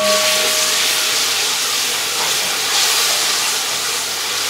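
Yogurt-marinated mutton pieces sizzling loudly in hot ghee: a dense, steady hiss as the wet marinade hits the fat.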